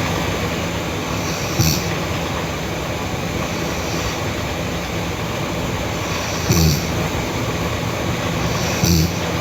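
A sleeping girl snoring loudly in short snorts, three times, over a steady loud rumbling background noise.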